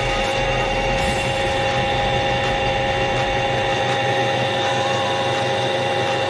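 A motor-driven machine running steadily: an even, high whine over a lower hum.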